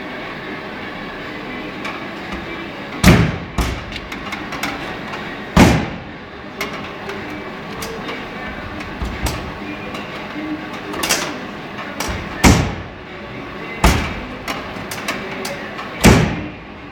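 A Renault Clio's front door, converted to rear-hinged suicide opening, being shut and opened again and again: about six hard metal door thuds, with smaller latch clicks between them. The speaker says the door striker is not yet adjusted properly.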